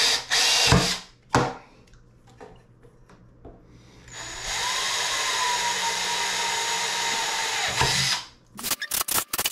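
Cordless drill running for about four seconds as it bores a hole into 1-inch PVC pipe, its motor whine steady until it cuts off. Clicks and knocks of handling come before it and after it.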